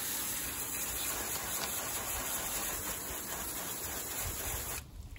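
Garden hose spray nozzle spraying water onto a car's front end and radiator: a steady hiss of spray that cuts off suddenly near the end.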